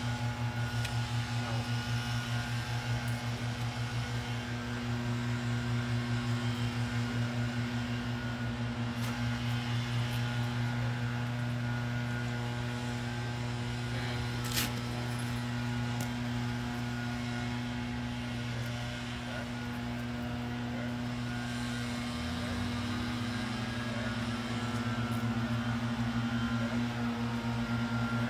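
A steady low engine drone with a fast pulsing beat, running unbroken, with a single sharp click about halfway through.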